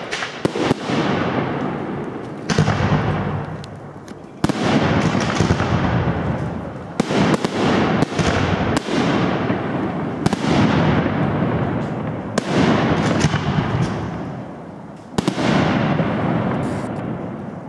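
Aerial firework shells bursting overhead: a series of sharp bangs a second or two apart, each trailing off over a second or more.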